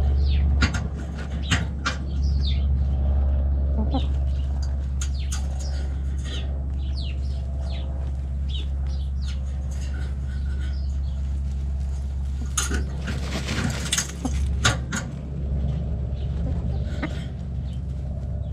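Backyard chickens dust bathing: a White Leghorn rooster and hens scratching and flicking dry dirt, with a rushing flurry of feather-shaking about two-thirds of the way through. Frequent short high chirps and a steady low rumble run underneath.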